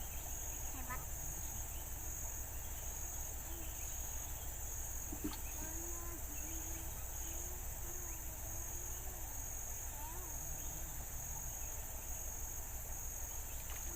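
Insects chirping in a high, steady pulsing trill that repeats a little more than once a second, with faint far-off voices under it.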